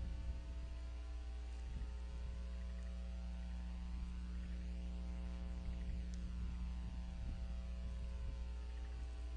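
Steady electrical mains hum with a stack of even overtones, picked up by a nest camera's microphone; a few faint ticks now and then.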